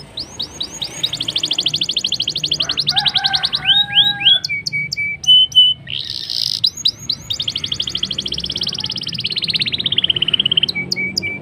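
A blacken, the blackthroat–canary cross, singing a long, loud, continuous song. It is made of very fast rolling trills, sweeping notes that slide down in pitch, and short steady whistled notes.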